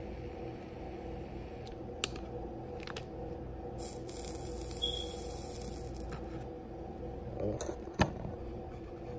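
A steady low hum with a few light clicks and taps, the loudest a sharp tap about eight seconds in, and a short hiss midway.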